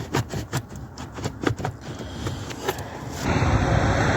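A quick run of small plastic clicks and rattles as the dashboard fuse-and-relay tray (BSI unit) is handled. About three seconds in, these give way abruptly to a louder, steady low rumbling noise.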